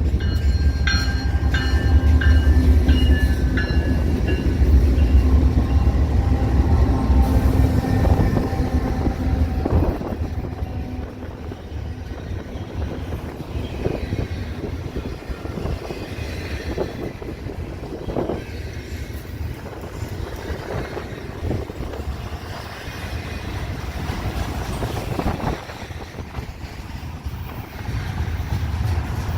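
Freight train cars rolling past, with a heavy low rumble and a few steady high ringing tones for the first several seconds. About ten seconds in it drops quieter, leaving the cars' wheels clicking and clunking over the rail joints.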